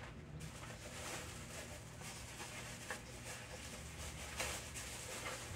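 Ninja countertop air fry oven running while it preheats, a faint steady fan whir and hum. A soft tap about four and a half seconds in.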